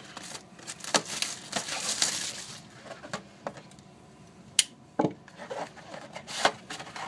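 Cardboard trading card box and its packaging being handled and opened: scattered taps and clicks with scraping and rustling between them.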